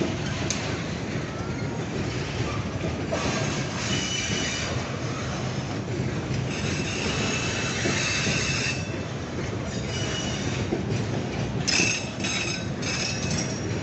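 Loaded freight wagons rolling past: a steady rumble of steel wheels on rail, with high-pitched wheel squeal coming and going and a run of sharp clicks about twelve seconds in.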